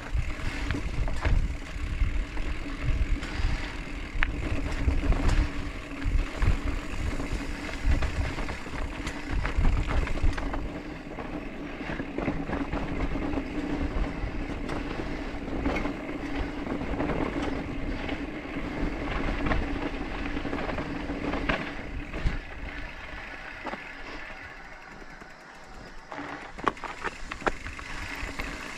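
Mountain bike riding a dirt trail: tyres rolling over dirt and rocks with scattered clicks and rattles, wind rumbling on the back-mounted camera's microphone, and a steady hum. Rough and gusty for the first ten seconds or so, then quieter and steadier.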